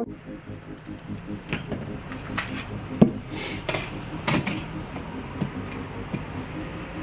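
Metal trowel scraping and clinking as mortar is worked and a flagstone is set: a string of short, sharp scrapes and knocks, the sharpest about three seconds in.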